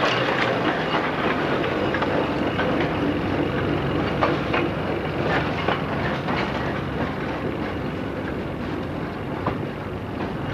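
Wooden Sóller tram cars rolling along the street rails, the wheels clicking irregularly over the track, growing gradually quieter as the tram moves away.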